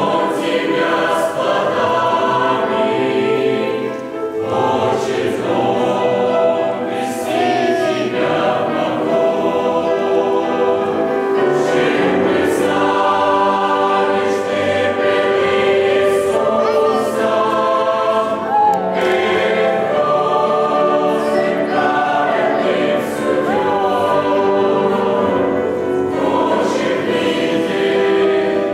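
Mixed choir of men's and women's voices singing together, with a brief dip about four seconds in.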